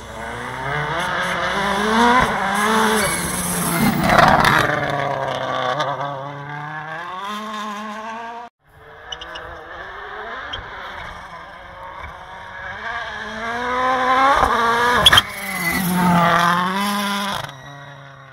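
Toyota Yaris WRC rally car's turbocharged four-cylinder engine at full throttle on two runs past, its pitch climbing and dropping again and again through fast gear changes and lifts. The first run stops abruptly about eight seconds in, and a single sharp crack near the end of the second run is the loudest moment.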